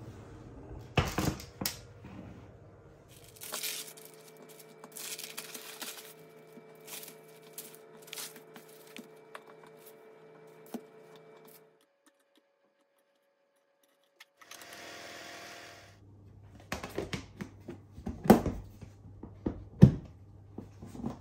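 Kitchen handling sounds in several short takes: a baked sponge cake sheet being torn and broken into pieces, with a steady hum under it. Near the end a glass food container with a plastic lid is handled on a stone countertop, giving a few sharp clacks.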